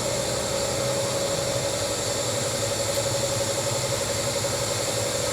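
A small motor running steadily with a constant, even hum.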